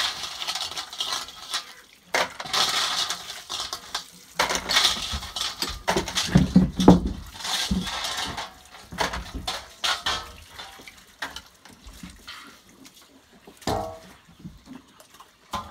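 Freshwater paddy snails being stirred and scooped by hand in a stainless-steel basin, their shells clattering and clinking against the metal in irregular bursts. Near the end a handful of shells drops into a cooking pot.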